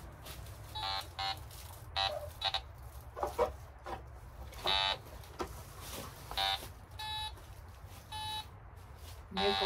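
Metal detector sounding target tones as its search coil is swept over the ground: short electronic beeps about once a second, some at a different pitch from others, with one longer beep about five seconds in. Each beep is the detector signalling a buried metal target, which the operator reads as iron, foil or nickel.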